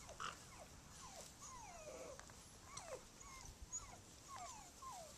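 Eight-week-old bullmastiff puppies whining faintly in play: a string of short whines that slide down in pitch, about two a second.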